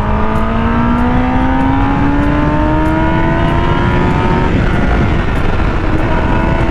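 Kawasaki ZX-10R's inline-four engine pulling hard under acceleration, its pitch rising steadily. About four and a half seconds in the pitch drops sharply as it shifts up a gear, then it pulls again. Wind rushes over the microphone throughout.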